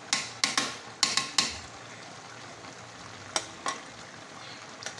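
Metal spatula clinking and scraping against a metal pot while stirring crabs in coconut milk. The strokes come thick in the first second and a half, then a few more later, over a steady low hiss from the simmering pot.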